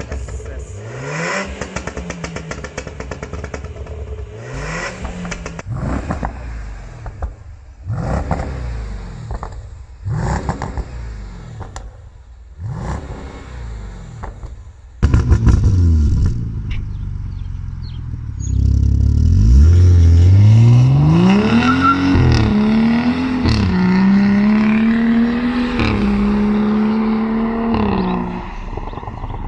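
Car engine on a pop-and-bang tune, blipped every couple of seconds with popping and crackling on the overrun between blips. In the second half it is revved up, held high for several seconds, then let fall.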